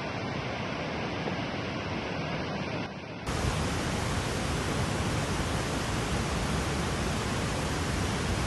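Steady rushing water noise. It cuts abruptly about three seconds in to a louder, fuller rush that then holds steady.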